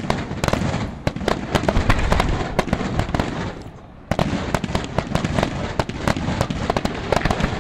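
Senatore Fireworks aerial display shells bursting in quick, overlapping succession: a dense volley of bangs and crackle. There is a brief lull just before four seconds in, then the bangs resume.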